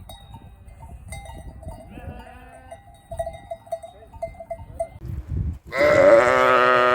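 Sheep bleating: one loud, wavering bleat about a second and a half long near the end. Before it there is only a low rumble and faint, higher calls from farther off.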